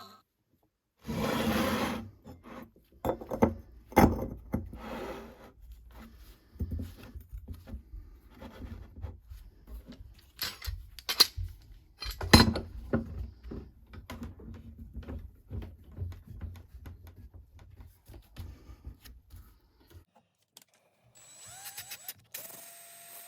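Hand-tool work on wood and metal: irregular scraping and rubbing broken by sharp knocks, with a steady whine starting near the end.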